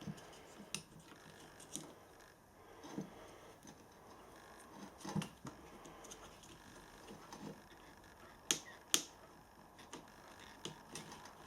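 Light scattered clicks and taps of a dismantled angle grinder's plastic housing and small internal parts being handled, the two sharpest clicks close together about two-thirds of the way through.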